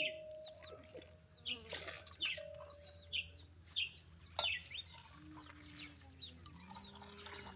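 Birds chirping in short, repeated calls, with a couple of sharp clicks.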